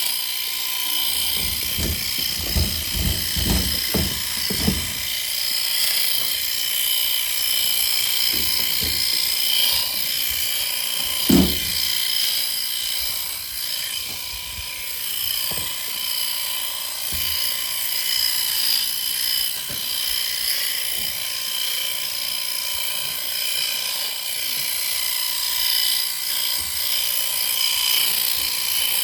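Electric sheep shears running steadily with a high whine while dirty wool is clipped from lambs' rear ends, with a few low knocks about two to five seconds in and a louder one near the middle.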